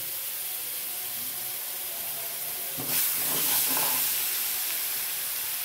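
Ground tomato sizzling and hissing in hot spiced oil in a frying pan while a spoon stirs it. The sizzle gets louder about three seconds in, as steam rises from the stirred pan.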